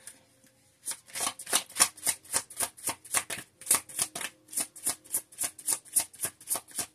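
Deck of oracle cards being shuffled by hand, the cards flicking against each other in a steady rhythm of about three strokes a second, starting about a second in.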